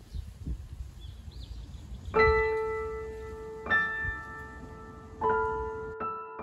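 Faint outdoor ambience, then about two seconds in, slow background music starts: single piano notes struck roughly every second and a half and left to ring.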